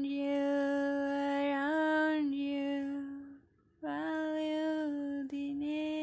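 A woman's voice singing long, held wordless notes that step gently in pitch, with a short break about three and a half seconds in.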